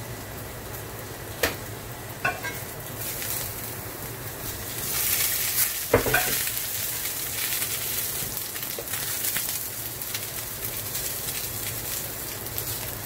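Squash slices sizzling in a very hot cast-iron skillet as they are turned with tongs. The sizzle swells about five seconds in as steam rises. A few sharp clicks of the tongs on the pan come early on, with a louder one near the middle.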